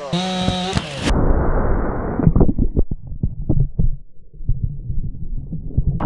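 A chainsaw runs for about a second and cuts off, then a low rumble and a run of irregular heavy thuds and sharp cracks follow, from the cut root plate and its clod of soil settling back.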